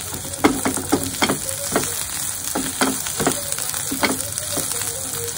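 Drumstick pieces sizzling in a non-stick pan while a spatula stirs and tosses them, knocking and scraping against the pan about a dozen times at an uneven pace.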